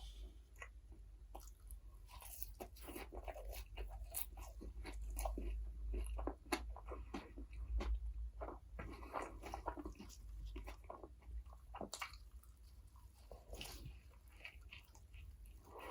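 Close-miked eating of McDonald's burgers and fries: crunchy bites and wet chewing, dense through the first half and sparser near the end.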